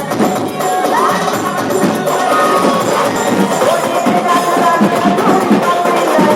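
Loud music played over a DJ sound system: a dense, fast percussion beat under a sustained, gliding melody line.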